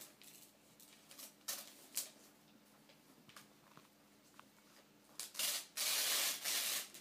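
Wrapping paper on a gift box being picked at and rustled, with a few sharp crinkles, then paper tearing loudly for about a second and a half near the end.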